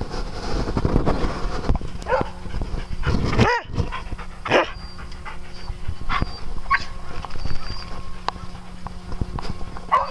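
Dogs panting, with a few brief high, arching vocal sounds from a dog scattered through.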